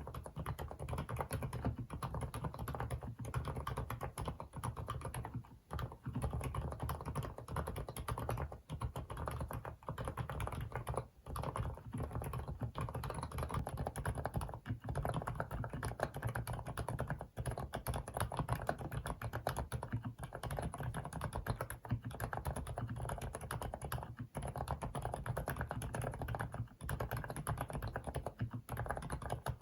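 Fast, continuous typing on an FL-ESPORTS CMK75 mechanical keyboard with Kailh silent cream linear switches: low-noise, soft, bubbly keystrokes, with a few brief pauses between bursts.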